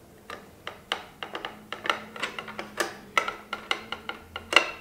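Irregular metallic clicks and ticks of a hand tool working the small screws out of a Kingsong S18 electric unicycle pedal.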